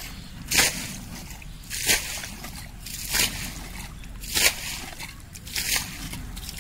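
Muddy water bailed out of a shallow pool with a plastic bucket, scooped up and flung out in a splash about every second and a quarter, five times. The pool is being drained to catch the fish in it.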